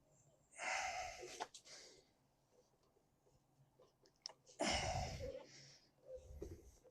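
Two hard, strained exhalations about four seconds apart, with a few light tool clicks, from straining to break a tight front axle loose.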